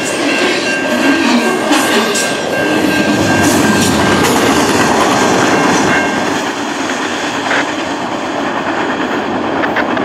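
Double-stack intermodal container freight train rolling past, its wheels clicking over the rail joints, getting somewhat quieter after about six seconds as the cars move away.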